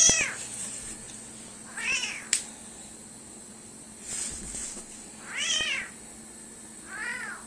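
Tiny kitten meowing: five short, high-pitched meows, each rising and falling in pitch, about a second and a half apart. A sharp click about two seconds in.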